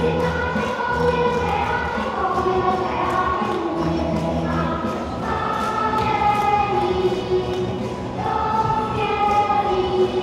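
Dance music with choir-style singing in long held notes over a steady beat, playing as the backing track for a group aerobics routine.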